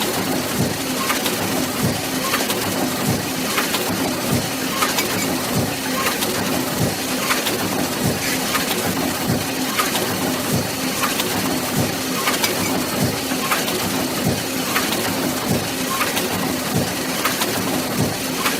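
Book press machine running, with a steady hum under a regular mechanical clatter of about one and a half strokes a second.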